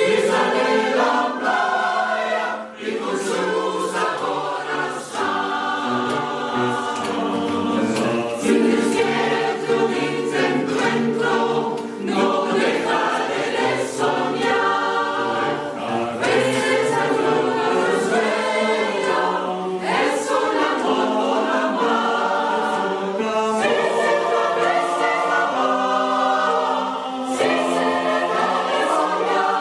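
A mixed choir of men and women singing together, in steady, sustained sung phrases with brief breaks between lines.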